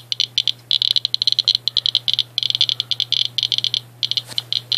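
Inspector USB Geiger counter clicking rapidly and irregularly, high-pitched clicks in random dense clusters with short gaps, registering about 1,100 counts per minute from uranium-doped Vaseline glass. A faint knock comes about four seconds in.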